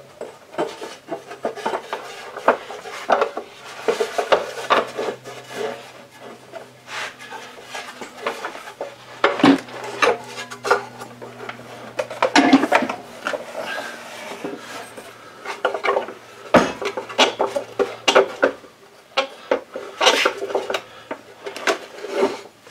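Metal and plastic parts of a cutoff saw being handled and fitted together by hand: irregular clinks, knocks and rubbing, over a low steady hum.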